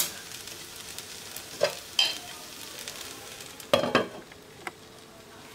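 Fried rice sizzling faintly in a metal pan on a low flame, with a couple of light clinks, then a glass lid with a metal rim clattering onto the pan about four seconds in, covering it to steam.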